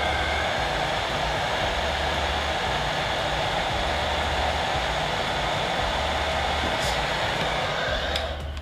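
Electric heat gun blowing hot air in a steady rush, softening plastic tubing so it can be bent. It cuts off suddenly near the end.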